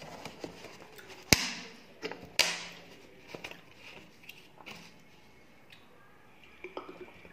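Fingers working rice on a steel plate, with two sharp metallic clinks that ring out, about a second and two and a half seconds in, and lighter taps and scrapes around them.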